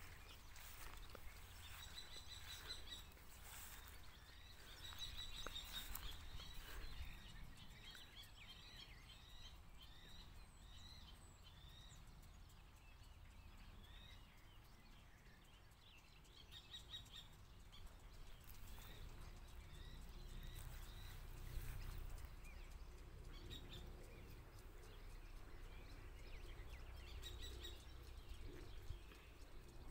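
Faint birdsong from small birds: short chirps and quick trills in scattered bursts, over a low steady rumble.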